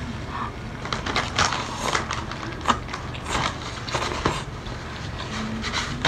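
Close-up eating sounds of someone chewing chili-coated seafood: irregular wet smacks and clicks of the mouth.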